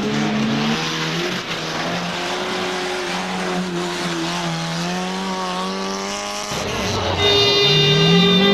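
Racing car engine held at high, fairly steady revs. About six and a half seconds in it breaks off, and a louder engine rises in pitch as it accelerates hard.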